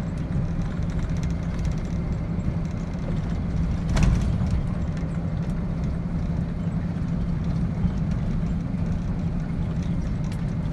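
Truck engine running with a steady low drone while driving, with a single knock about four seconds in.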